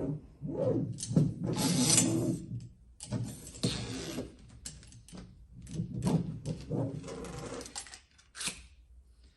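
Flexible drive core of a shearing downtube being fed down its metal tube: irregular bursts of scraping and rubbing with sharp metallic clicks and knocks.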